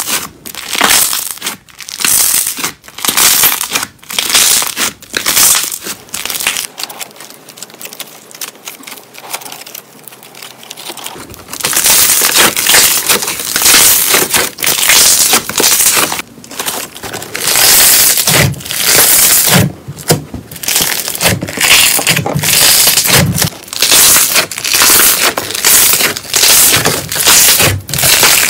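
Slime being squeezed and kneaded by hand, making repeated crackling, crinkly pops in bursts. A quieter stretch comes about a third of the way in, then the bursts grow louder and denser for the rest.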